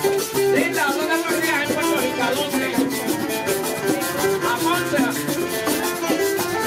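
Live aguinaldo jíbaro: a man sings a melodic line over strummed guitar and Puerto Rican cuatro. A güiro is scraped and maracas are shaken in a fast, steady rhythm.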